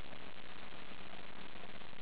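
Wood fire burning in a fireplace: a steady hiss with a few faint crackles, over a low steady hum.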